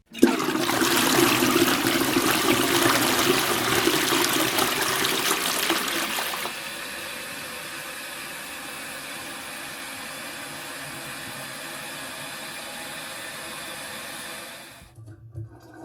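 Toilet flushing: a sudden loud rush of water that lasts about six seconds, then drops to a quieter, steady running of water that stops about a second before the end.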